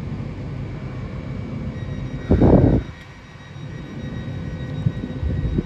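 Diesel train's engines idling steadily at the platform with a faint high whine, interrupted about two seconds in by a brief loud blast of noise.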